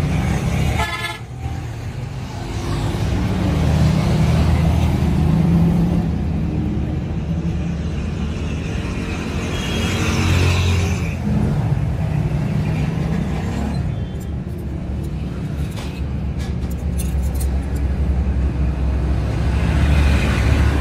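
Motor vehicle engines running close by, with a horn tooting; a few light clicks sound in the middle.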